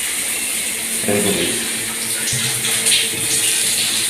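Water running steadily from a tap through a newly installed water heater during a test.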